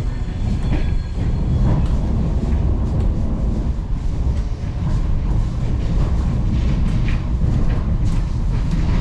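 Train running: a steady, loud low noise with scattered faint clicks and rattles.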